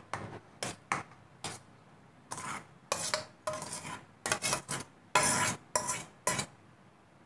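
Steel spoon scraping and clinking against steel bowls while chopped tomatoes are scooped out of one bowl and tipped into batter in another: a string of short, irregular scrapes and taps.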